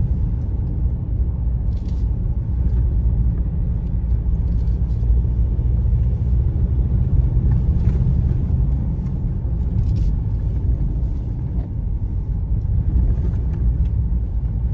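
Cabin noise of a Ford Ranger Raptor driving on a rough dirt trail: a steady low rumble of tyres, suspension and engine, with faint clicks now and then.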